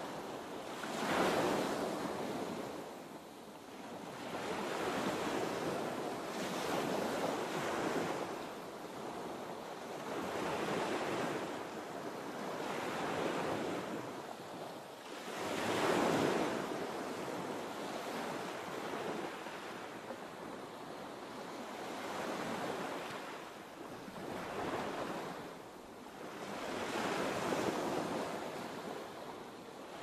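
Sea waves breaking and washing in, a steady rushing surf that swells and falls back every few seconds, with bigger waves about a second in and about halfway through.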